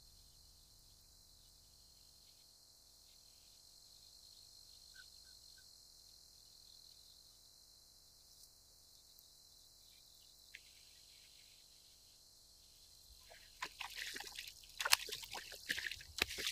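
Faint steady outdoor hiss, then near the end a hooked crappie thrashing at the water's surface close to the bank: a quick run of sharp splashes, the loudest sound.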